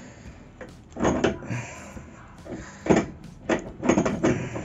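A wrench working on a threaded galvanized pipe fitting clamped in a bench vise as it is tightened: a handful of short metallic knocks and scrapes, irregularly spaced, starting about a second in.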